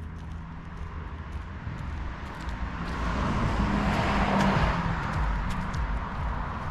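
A car passing by over a low traffic rumble, its tyre and engine noise swelling to a peak about four seconds in, then fading.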